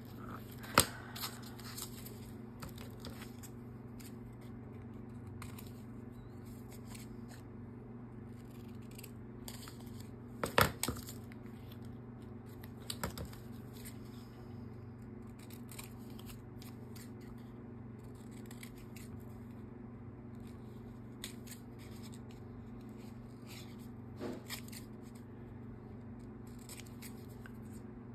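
Paper and card being handled and cut with scissors: faint rustling and snipping, with a few sharp taps, the loudest about ten seconds in. A steady low hum runs underneath.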